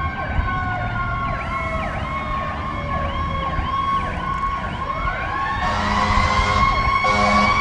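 Fire truck sirens going on an emergency response: a fast yelping siren over a slow wail that sinks and then winds back up about five seconds in. A steady horn sounds from about six seconds, briefly breaking off near seven seconds.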